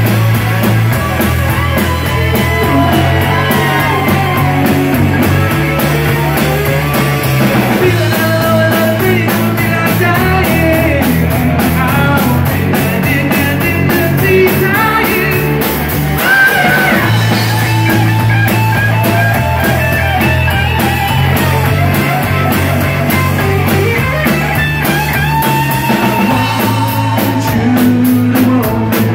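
Live rock band playing loud and steady, with electric guitars and a drum kit over a low line that shifts every few seconds.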